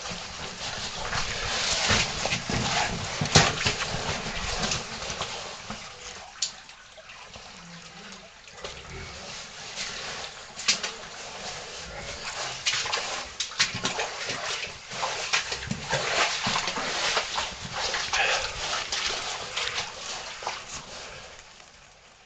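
Cavers crawling through a tight cave passage: irregular scuffing, scraping and knocking of bodies and gear against rock. It is busiest in the first few seconds and again through the second half, easing off near the end.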